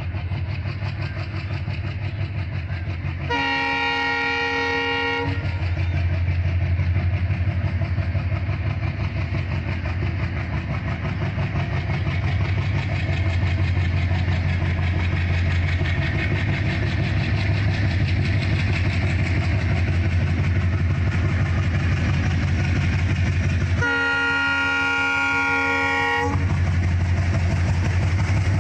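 ALCO WDG-3A diesel locomotives approaching with their engines running in a steady low drone. The locomotive's multi-tone horn sounds twice, each blast about two seconds long: once about three seconds in and again near the end.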